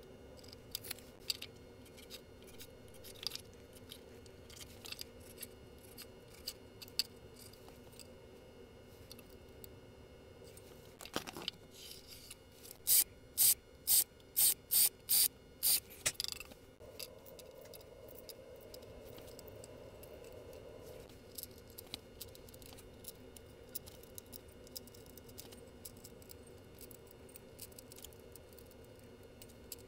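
Sped-up workshop sounds: scattered light clicks and taps of hand tools on a wooden board, with a cordless drill running in eight short, evenly spaced bursts in a row about halfway through, drilling a row of holes along the board.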